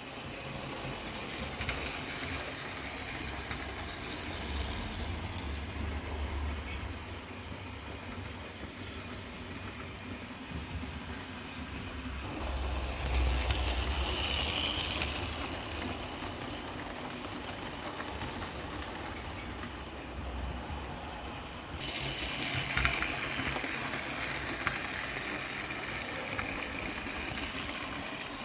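Several OO-gauge model locomotives running round a layout: a steady whirr of small electric motors and wheels rattling on the track. It grows louder about twelve seconds in and again near the end, as a train comes closer.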